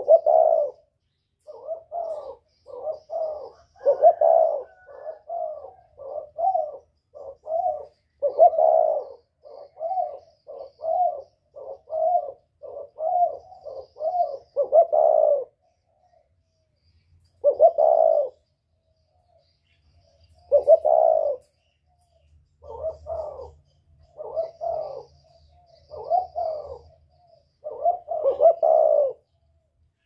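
Spotted dove cooing in the whistle-voiced northern song type used as a lure call for wild doves. A quick run of short coo notes lasts about fifteen seconds, then, after a brief pause, single coos follow a second or two apart.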